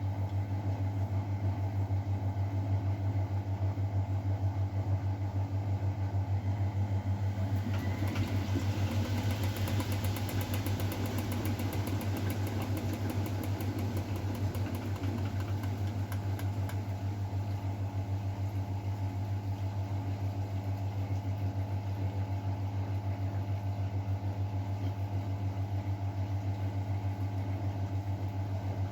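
Miele Novotronic W912 washing machine running with a steady hum. From about eight to sixteen seconds in, a rushing noise with fine crackling rises over it, then fades.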